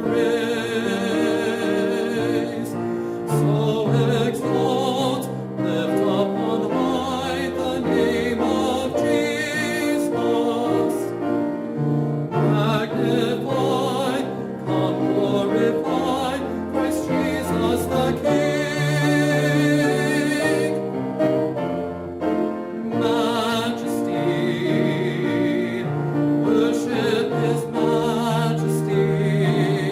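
Choir singing with vibrato over a piano accompaniment, a sacred choral piece.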